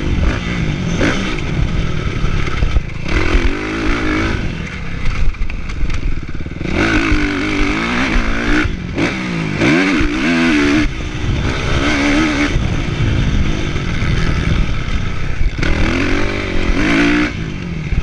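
Kawasaki motocross bike's engine revving hard and falling off over and over as it is ridden round the track, the pitch climbing and dropping with each run of throttle.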